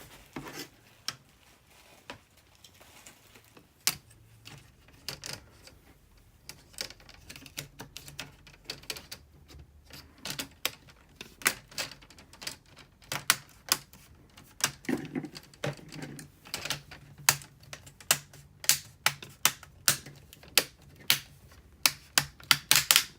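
Plastic screen bezel of a Lenovo IdeaPad 320 laptop being pressed back onto the lid, its clips snapping into place as a series of sharp clicks. The clicks are sparse at first and come thick and fast through the second half, loudest near the end.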